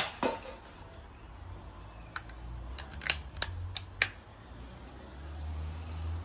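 Haenel 49a spring-piston air rifle firing with a sharp crack, followed a quarter second later by a second, quieter crack. From about two seconds in comes a quick run of about six metallic clicks as the action is cocked and reloaded.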